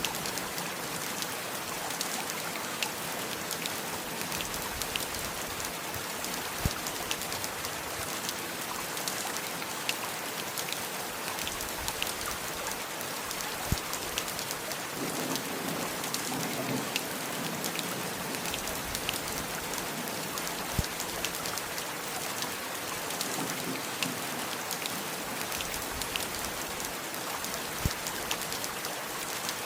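Steady heavy rain falling, with many individual drops tapping close by throughout.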